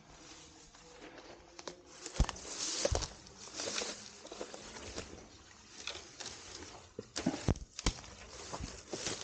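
Footsteps through woodland undergrowth: leaves and grass rustling irregularly, with sharp twig snaps and knocks underfoot, the loudest about two, three, seven and a half and eight seconds in.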